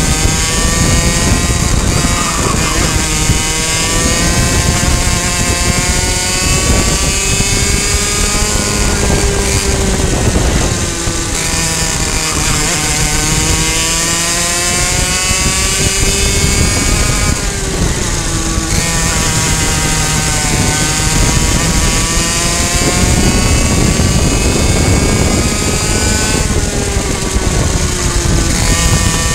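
High-revving two-stroke racing kart engine heard onboard, running at around 9,000 to 11,000 rpm. Its pitch climbs on each straight and drops back as the driver lifts and brakes for the corners, several times over.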